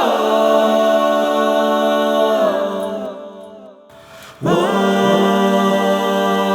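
Background music of long held, choir-like chords. The chord dies away about three seconds in, and a new one swells in about a second and a half later.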